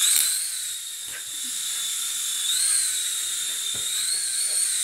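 Small hand-launched toy drone flying, its propeller motor whining steadily at a high pitch that wavers up and down a few times.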